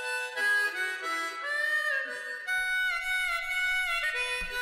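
Music: a melody of held notes over chords, stepping to a new pitch every half second or so.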